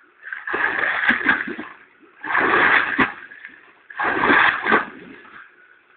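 A person thrashing and slapping the water in a swimming pool: three big splashes about two seconds apart, each dying away in the gap before the next.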